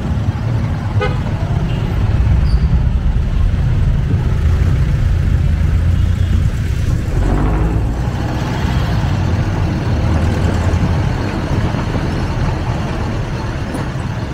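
Jeepney engine rumbling steadily with road noise, heard from inside the open passenger cabin, with a short vehicle horn toot about a second in.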